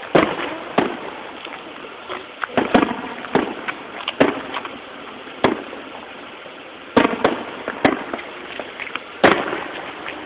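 Aerial firework shells bursting overhead: about ten sharp bangs at uneven intervals, each trailing off in a brief echo, with a few smaller pops between them.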